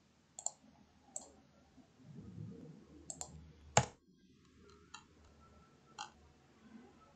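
Scattered clicks of a computer mouse and keyboard while a spreadsheet formula is being edited: about seven sharp single clicks at uneven intervals, the loudest about four seconds in.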